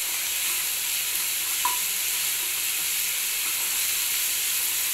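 Chopped onions and ginger-garlic paste sizzling in hot oil in a non-stick pan as they are stirred with a wooden spatula. The steady frying hiss carries one short tick about a second and a half in.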